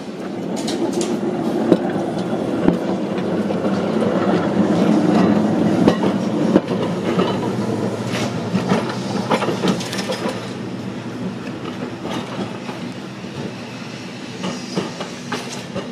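Heritage electric tram No. 341 running along the track, a steady rumble with scattered clicks from the wheels on the rails. It grows louder until about halfway as it passes close, then fades as it moves away.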